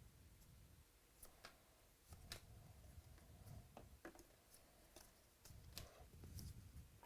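Faint handling of trading cards and packs: a handful of light clicks and ticks scattered over several seconds, over a low hum.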